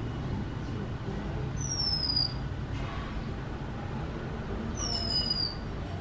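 Female Oriental magpie robin giving a short, high, falling whistle twice, about three seconds apart. A steady low rumble runs underneath.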